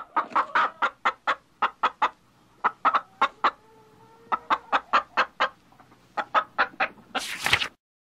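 A domestic hen clucking: runs of short, quick clucks with brief pauses between them. Near the end comes one louder, longer squawk.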